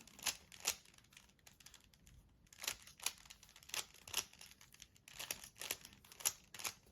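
3×3×3 Rubik's Cube being twisted by hand: faint, quick plastic clicks of the layers turning, coming in irregular runs.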